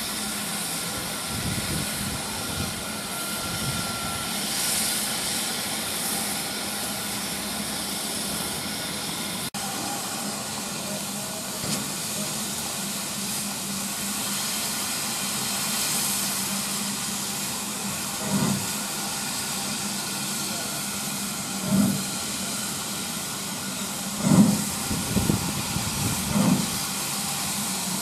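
BR Standard Class 4 2-6-0 steam locomotive 76079 letting off a steady hiss of steam. From a little past halfway, single heavy exhaust beats come a few seconds apart and then closer together as the engine gets under way.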